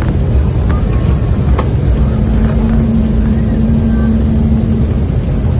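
Cabin noise inside an Embraer E190 airliner rolling along the runway after landing: a loud, steady low rumble from the engines and the landing gear on the runway. A steady hum joins in about two seconds in and fades out near the five-second mark.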